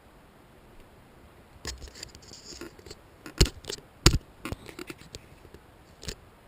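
Scraping and rustling with a few sharp clicks and knocks, starting about a second and a half in.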